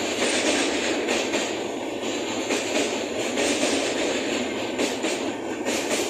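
Passenger train coaches rolling past at speed: a steady rushing rumble of steel wheels on rail, with repeated clacks as the wheels cross rail joints.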